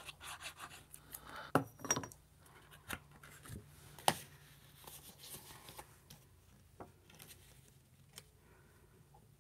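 Cardstock being handled on a tabletop: paper rubbing and rustling for the first second or so, then a few sharp taps as the glued panel is set down into the card base and pressed flat.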